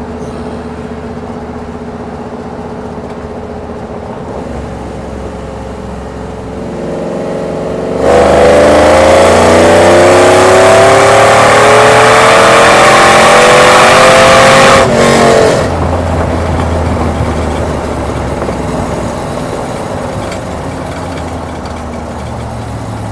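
Cammed LS V8 of a single-cab Chevrolet Silverado, heard from inside the cab with long-tube headers and the exhaust cutout valve closed. It drones at a light cruise, then about eight seconds in goes to full throttle and the engine note climbs steadily for about seven seconds, really loud. It drops back suddenly to a low cruise drone as the throttle is lifted.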